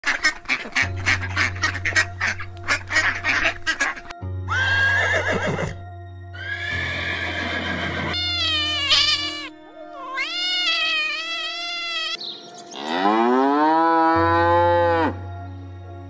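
A string of farm animal calls in quick succession: rapid duck quacking over the first four seconds, then several drawn-out pitched calls, and a long cow moo that rises and holds, starting about thirteen seconds in.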